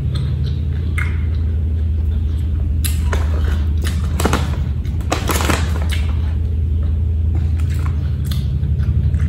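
Close-up chewing of crunchy raw fruit and vegetables: a series of crisp crunching bites, thickest from about three to five and a half seconds in, over a steady low hum.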